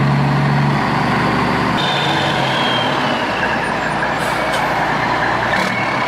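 A truck engine running amid a steady wash of noise. Its low hum drops away in the first two seconds while the noise carries on.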